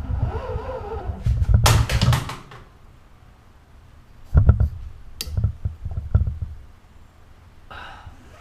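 Hands handling string-trimmer parts: a loud scraping slide about two seconds in, then several light knocks and clicks of plastic and metal being set down and moved.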